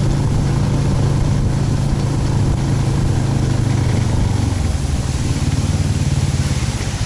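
Engine of a motorized snow tow unit (motosobaka) running steadily while driving over the lake ice, easing off about four and a half seconds in.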